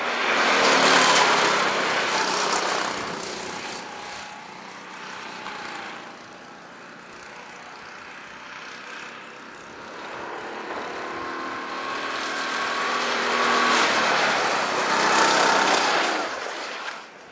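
Rental karts' small engines running at racing speed. One passes close about a second in and fades away, then another swells up and passes near the end, the engine note rising and falling with the throttle.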